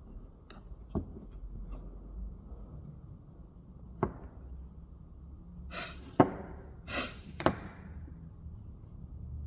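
Wooden parts being handled: a few sharp knocks and two brief scrapes, over a low steady hum.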